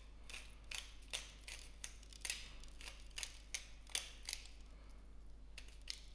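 Hand-twisted salt grinder grinding salt, a run of faint clicks about two or three a second, pausing about four and a half seconds in and starting again near the end.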